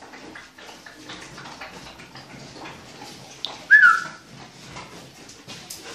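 Dogs moving about on a tile floor with claws clicking and scuffling, and about two-thirds of the way in a brief high-pitched yelp from a dog, falling slightly in pitch, which is the loudest sound.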